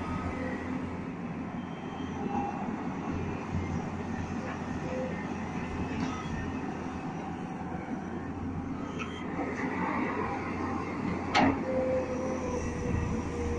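Tata Hitachi EX210LC hydraulic excavator working in power mode: its diesel engine and hydraulics run with a steady heavy rumble as it digs and loads a tipper truck. There is a sharp knock about eleven seconds in, followed by a steady high whine.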